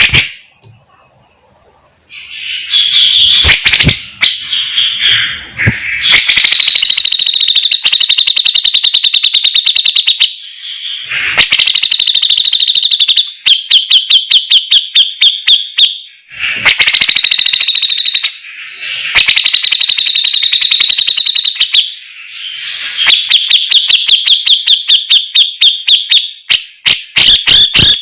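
Grey-cheeked bulbul (cucak jenggot) singing in loud bursts of rapid, high chattering trills, each a few seconds long with short pauses between.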